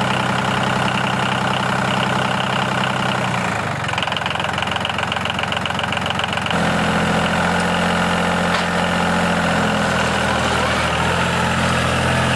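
Small DC electric motors of a miniature DIY model tractor running with a steady buzzing whine. The pitch and tone shift about four and six and a half seconds in.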